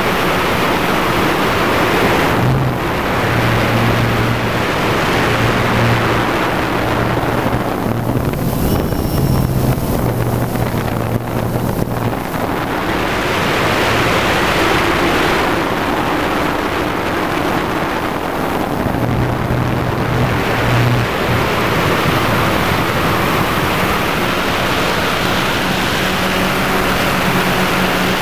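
DJI Phantom quadcopter's motors and propellers buzzing steadily, with wind rushing over the onboard camera's microphone. The propeller hum shifts in pitch a few times as the drone manoeuvres, and the rush of wind swells and fades.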